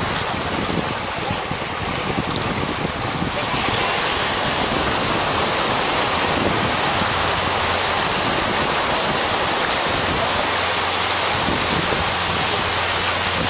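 Steady wash of small surf breaking and running up a shallow sandy beach, with wind rumbling on the microphone.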